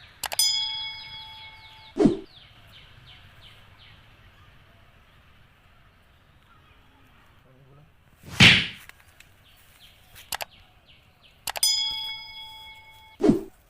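A metal object is struck twice, about eleven seconds apart, and each strike rings for over a second with the same set of pitches. Each ring is followed by a short, dull thud, and a louder swish comes between the two.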